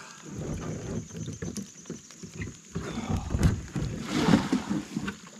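Water splashing and sloshing around a person wading beside a plastic Hobie Pro Angler 14 fishing kayak, with irregular knocks and thumps of gear against the hull. A louder burst of splashing comes about four seconds in.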